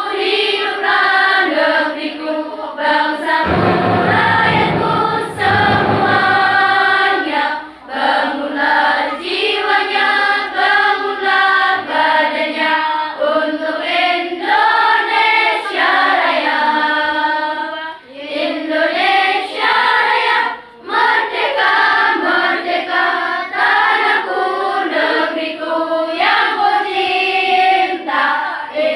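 A choir of girls singing together, phrase after phrase, with short breaths between lines. A low rumble sits under the singing for a few seconds near the start.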